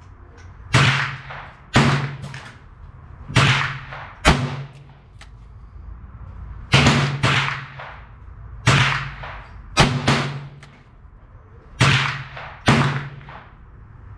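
A .22 LR rimfire revolver, a long-barrelled Taurus Model 66, fired in a slow string of about ten shots a second or two apart, each a sharp crack with a short echoing tail.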